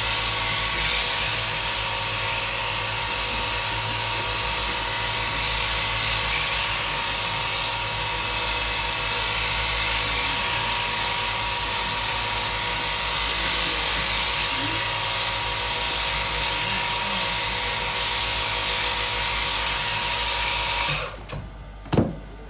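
Sheep-shearing handpiece running steadily with a high-pitched drill-like whine as it cuts through the fleece. It cuts off suddenly about a second and a half before the end, followed by a short sharp knock.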